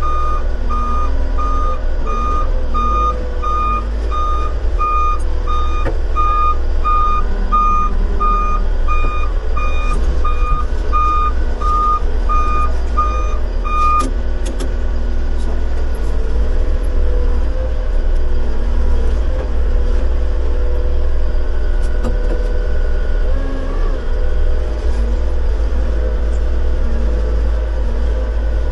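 Work vehicle's reversing alarm giving repeated, evenly spaced beeps that stop about halfway through, over a steady low engine rumble.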